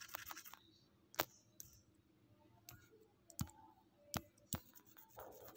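Faint, scattered sharp clicks, about ten spread unevenly, from a stylus tapping on a tablet's touchscreen while underlining, with a short scratchy stretch of pen on glass near the end.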